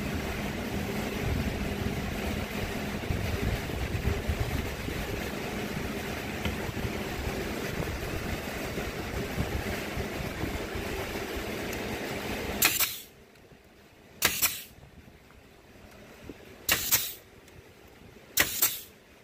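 Steady whir of shop fans, which stops abruptly about two-thirds of the way through. Then a Porter-Cable pneumatic brad nailer fires four times, sharp shots about two seconds apart.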